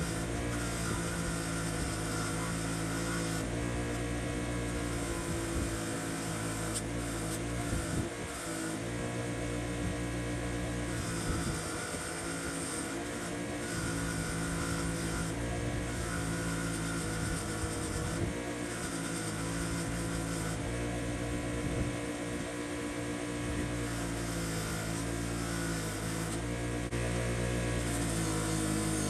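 Motor-driven wire wheel running at a steady speed, with scratchy stretches of wire brushing every few seconds as it is pressed against the old vise parts to strip off grime and rust.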